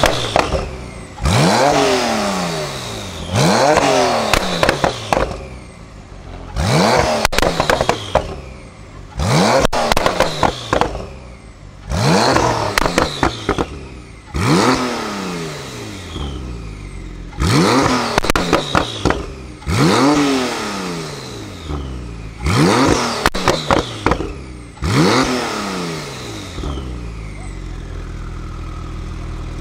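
Twin-turbo flat-six of a tuned 820 hp Porsche 991 Turbo S being free-revved about ten times while standing still, each rev rising sharply and falling back, with pops and crackles from the exhaust as the revs drop. It settles back to a steady idle near the end.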